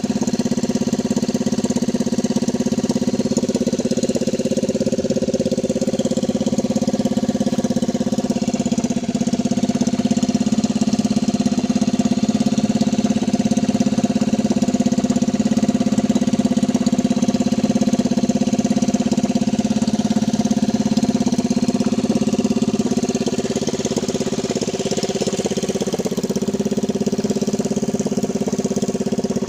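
Motorcycle engine converted to drive a boat, running steadily at an even speed while trolling.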